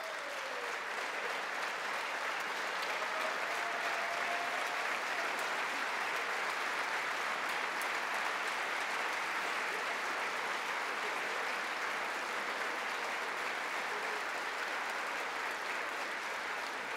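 A large crowd of House members applauding steadily, the clapping fading out near the end.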